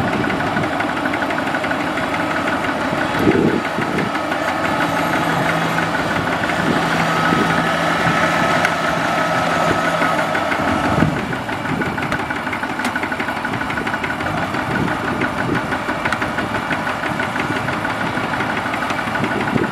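Diesel engines running steadily: a Kubota DC-70 crawler combine harvester on its tracks, with two-wheel walking tractors close by. A thin steady whine sits over the engine noise for several seconds in the middle, and the sound drops slightly about eleven seconds in.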